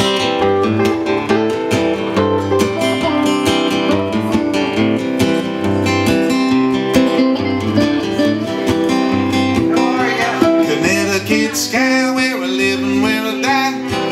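Instrumental guitar break: a steel-string acoustic guitar picking and strumming chords while a second guitar plays lead lines over it.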